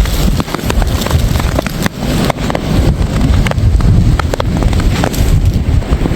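Strong wind buffeting the microphone in a snowstorm: a loud, gusty low rumble with scattered small ticks over it.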